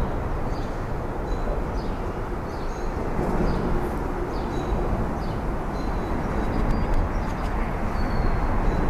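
Traffic crossing the Bloor Street bridge overhead makes a steady low rumble. Small birds chirp briefly, several times over it.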